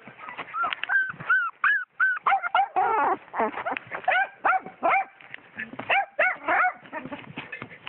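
Young puppies whimpering and yelping: a rapid string of short, high cries that rise and fall in pitch, several a second.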